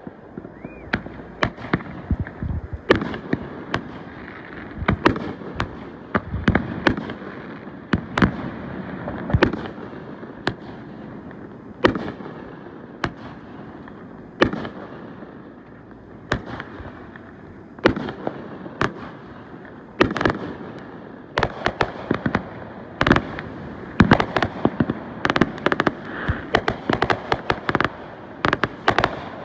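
Fireworks going off: loud, sharp bangs one after another at irregular intervals, each with a short rumbling tail, coming thick and fast in a rapid flurry of cracks near the end.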